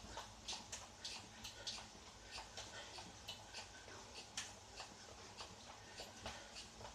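Indoor spin bike ticking lightly with each turn of the pedals under fast pedalling, a few uneven clicks a second over a low steady hum.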